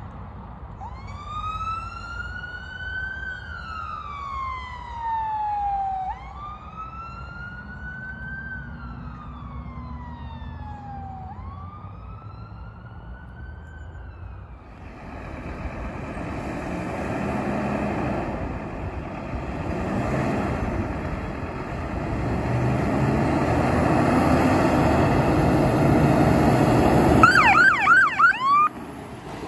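A fire engine's wail siren sweeps up and slowly down three times. Then a Scania turntable ladder's diesel engine builds steadily louder as it pulls out and comes closer, and near the end a rapid burst of short yelping siren chirps sounds.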